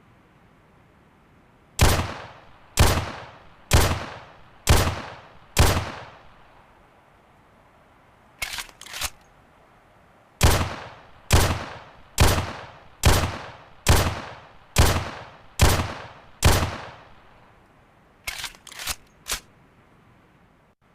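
11.4 mm (.45-calibre) pistol fired in single shots, each with a fading echo: five shots about a second apart, then three quieter sharp clicks, then eight shots a little under a second apart, then three more quieter clicks.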